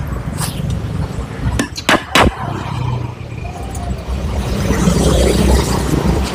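Pliers and small steel engine parts clicking against the cylinder head of a Honda Grand engine as it is taken apart, with a few sharp clicks about two seconds in. A steady low rumble of vehicle noise runs underneath.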